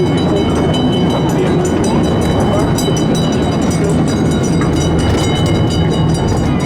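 Theme-park steam train running on its track: a steady rumble of wheels and carriages with a faint high ringing tone above it.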